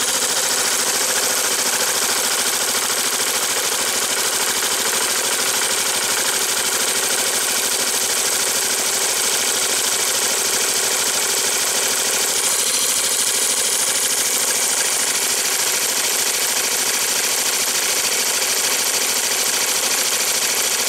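Yamaha Majesty YP400 scooter's single-cylinder four-stroke engine idling steadily just after being started.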